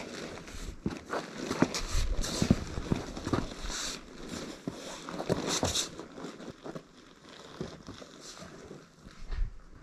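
Footsteps on sand and sandstone, an uneven run of scuffs and crunches with a few sharper scrapes, thinning out and getting quieter after about six seconds.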